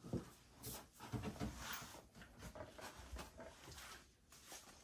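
Faint, scattered sounds from dogs lying close, with quiet rustling and small knocks.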